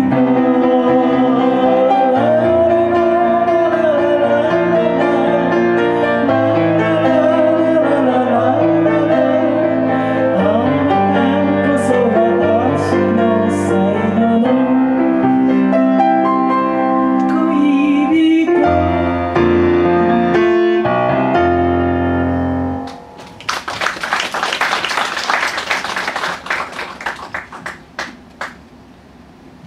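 Woman singing a chanson into a microphone with piano accompaniment, ending on a held final note and chord about 23 seconds in. Audience applause follows and dies away over the next few seconds.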